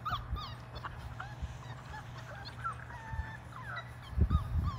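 Five-week-old Labrador Retriever puppies giving many short, high whimpers and squeaks as they play. There are a few low thumps a little past four seconds in, the loudest sounds.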